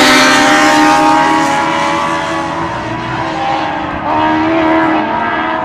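A pack of mini sprint race cars running on a dirt oval, engines loud as they pass close and then fading as they move away. About four seconds in, an engine note rises as a car accelerates.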